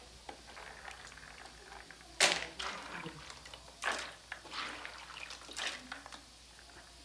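Water sloshing and splashing as a hand rubs açaí berries in a plastic basin of water, working the pulp off the pits, with three louder splashes spread through it.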